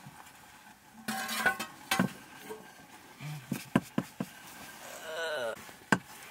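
Wooden stirring stick knocking and scraping against a metal cooking pot on a wood-fire hearth, with a scattering of sharp clinks and knocks at uneven intervals, some ringing briefly.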